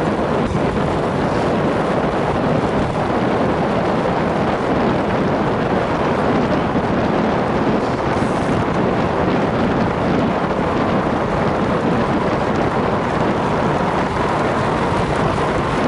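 Steady rush of wind over the microphone of a camera on a road bike moving at racing speed.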